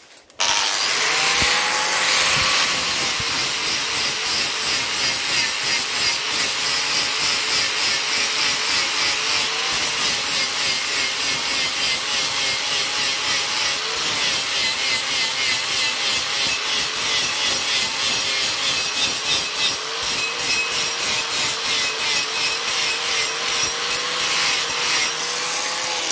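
Angle grinder with a flap disc grinding the flat face of a steel panel edge, starting about half a second in. The motor pitch wavers as it works the metal, and the sound begins to die away at the very end.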